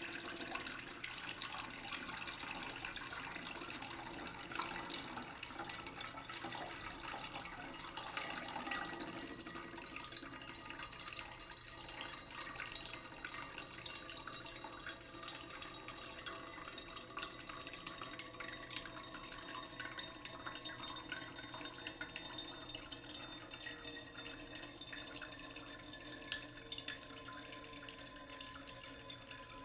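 Steady running water with a dense patter of fine droplet clicks.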